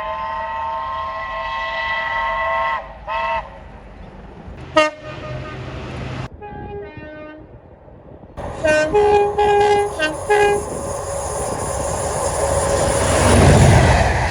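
Train horns sounding in a run of separate clips. First a long chord of several notes with a short second toot, then a brief sharp toot, a fainter series of short toots, and a set of short two-note toots. Near the end comes a rising rush of noise as a train passes, loudest just before the end.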